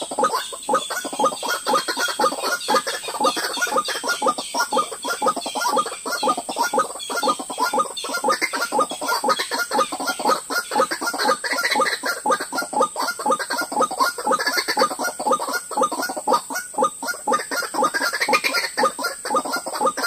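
White-breasted waterhens calling their repeated 'ruak-ruak' call, a fast, unbroken run of calls several a second.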